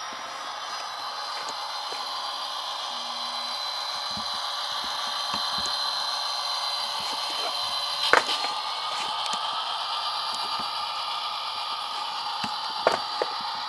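Tsunami sound decoder in an Athearn Genesis FP45 model locomotive playing its diesel engine sound through the model's small speaker, thin with no bass and with slowly shifting tones. A few sharp clicks cut in, the loudest about eight seconds in and two more near the end.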